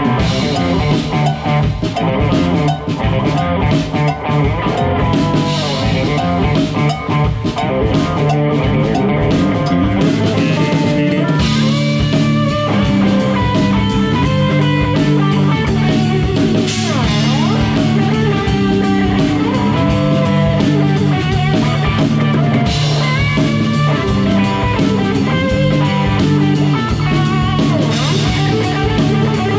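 Live rock band playing with guitars and a drum kit. The sound fills out with steadier, sustained low notes about eleven seconds in.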